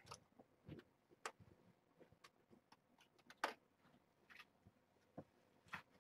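Near silence broken by faint, irregular taps and rustles of kittens scampering and wrestling on a towel, the loudest tap about three and a half seconds in.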